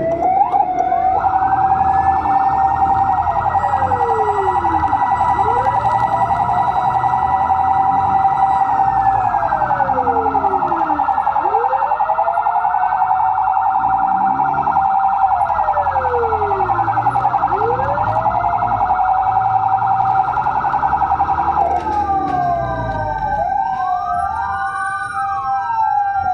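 Fire truck sirens sounding together: a fast electronic warble over a steady tone, with wailing sirens rising and falling around it. The warble stops near the end while the wailing goes on.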